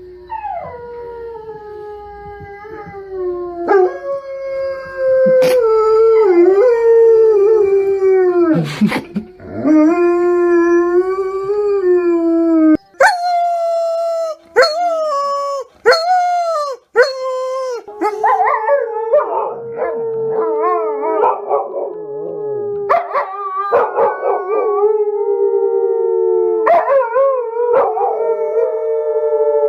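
Dogs howling: long, drawn-out howls that slide up and down in pitch, with a few abrupt breaks midway and several dogs howling together in the second half.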